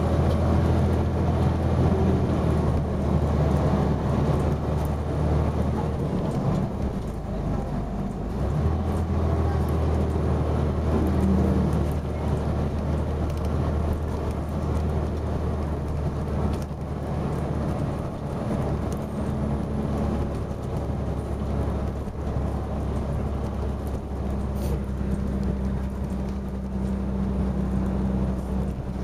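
Dennis Arrow double-decker bus engine thrashing under load, heard from inside the saloon. The engine note breaks off briefly about seven seconds in, then comes back and keeps pulling.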